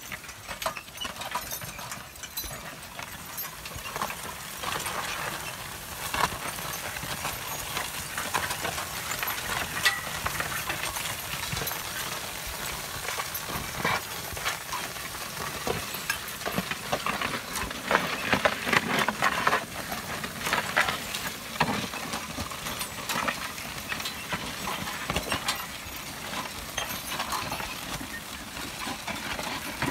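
Horse-drawn riding plow cutting through grass sod: a steady crackling rush of soil turning over the moldboard, with frequent clicks and rattles from the plow's metal frame and wheels.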